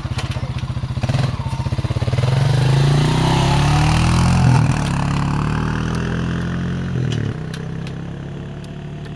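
Honda ATV engine idling with a fast, even beat, then revving up as the quad pulls away and rides past, its pitch climbing for a couple of seconds before easing down and fading toward a steady, lower engine note.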